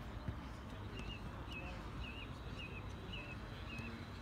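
A bird calling over and over, short wavering high notes about two a second, over a steady low background rumble.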